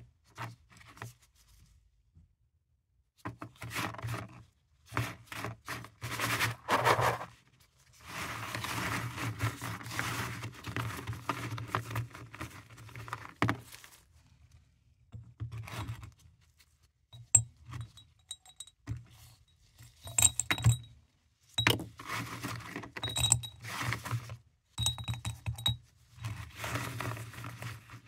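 Hard paradichlorobenzene mothball tablets clattering and clinking against each other as gloved hands scoop and sift them. In the second half, tablets dropped into a glass jar make short, ringing glassy clinks.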